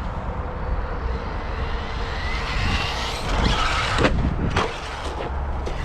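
Brushless electric motor of a Traxxas Maxx RC monster truck whining as it speeds up, rising in pitch for a couple of seconds. Two sharp knocks follow about a second apart as the truck hits the ground.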